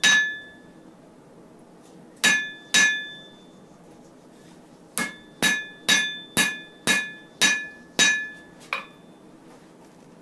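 Hand hammer striking a hot wire-rope Damascus knife blade on an anvil, each blow ringing out. One blow, then two close together, then a steady run of seven blows at about two a second, ending with a lighter tap.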